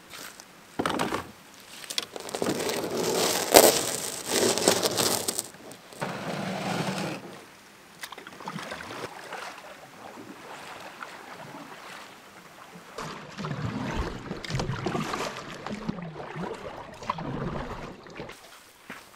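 Esquif Adirondack canoe being loaded, with irregular knocks and rustling of gear and packs against the hull, loudest over the first few seconds. Later come irregular paddling and water sounds against the canoe on open water.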